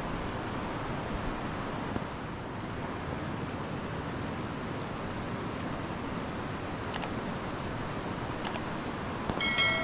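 Steady, even hiss of heavy rain, with a couple of faint clicks and a brief ringing tone of several pitches near the end, the loudest moment.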